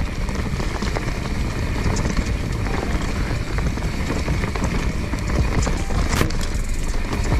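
Mountain bike descending a rooty dirt singletrack: a steady rumble of tyres rolling over dirt and dry leaves, with the bike rattling and sharp knocks as it hits roots and rocks. The loudest knock comes about six seconds in.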